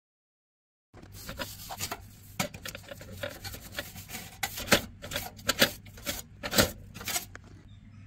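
Brushing and scraping inside the heat exchanger flueways of an Ideal Mexico Slimline 2 boiler to clear loose dust and debris. It starts about a second in as a run of rasping strokes broken by sharp knocks, over a low steady hum.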